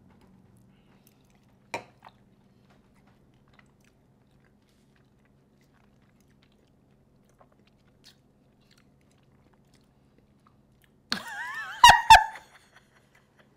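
Mostly quiet, with a faint low hum and a few small clicks and mouth sounds of people eating. Near the end comes the loudest sound: a short, high-pitched, wavering vocal sound cut through by two sharp clicks.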